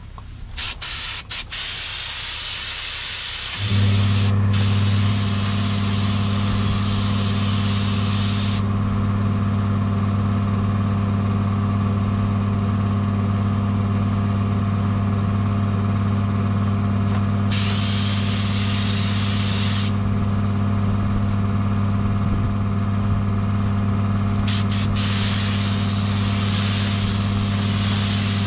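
Air spray gun hissing as clear coat is sprayed onto a car bumper, in several long passes with breaks between them. About four seconds in, a motor, likely the air compressor, starts up and hums steadily underneath.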